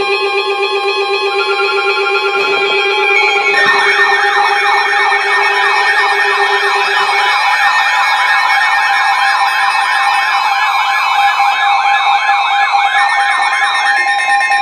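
Electronic siren warbling quickly up and down, about three sweeps a second, layered over a stack of steady alert tones. Near the end the warble stops and a single steady alert tone carries on.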